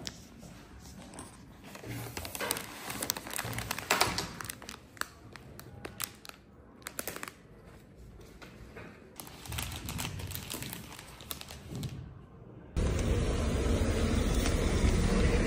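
Handling sounds of objects being moved about: irregular crinkling and light clicks and knocks. About thirteen seconds in, it cuts abruptly to a louder, steady low rumble.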